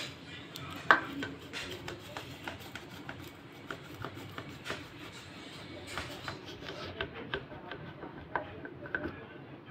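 Kitchen knife cutting through a pan of set chana dal halwa, the blade knocking and scraping on the stainless steel pan in a run of small irregular clicks, with one sharper tap about a second in.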